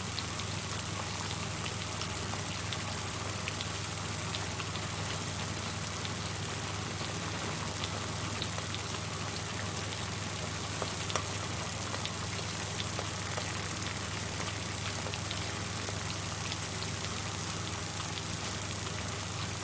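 Food deep-frying in hot oil: a steady sizzle with scattered sharp pops and crackles, over a low steady hum.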